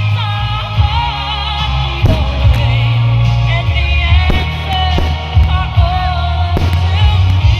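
Loud music with a singing voice over a heavy bass line, with a few sharp hits through it.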